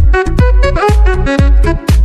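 Background music with a steady, heavy bass beat and a melody over it.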